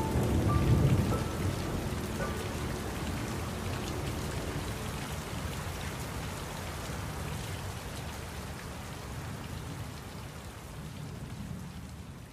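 Steady rain falling, with a low rumble about a second in and the last faint notes of music dying away in the first couple of seconds. The rain slowly fades down toward the end.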